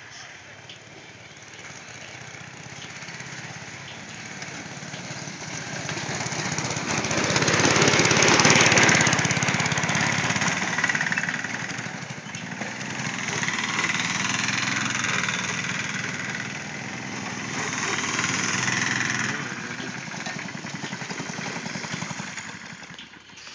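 Small engines of two off-road go-karts racing on a dirt track, growing louder and fading as they pass close by. Loudest about eight seconds in, with further swells around fourteen and eighteen seconds.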